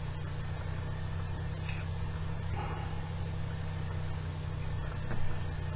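A steady low machine hum, with a few faint light clicks over it.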